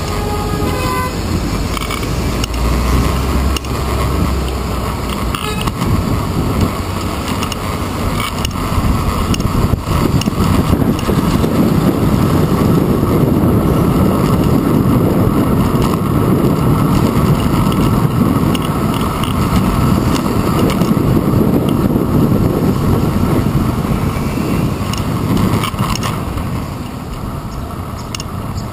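Wind buffeting and road rumble on a handlebar-mounted GoPro Hero 2 as a bicycle rides through city traffic, with the engines of nearby buses and cars mixed in. A brief car horn sounds about a second in, and the rumble grows louder through the middle.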